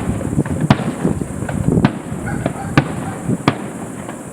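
Fireworks display: five sharp bangs of aerial shells bursting at irregular intervals of roughly a second, with a continuous low rumble and crackle between them.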